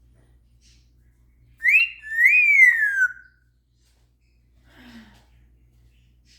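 African grey parrot whistling a loud two-note whistle: a short note sliding up, then a longer note that rises and falls away. A faint, short low sound follows about a second and a half later.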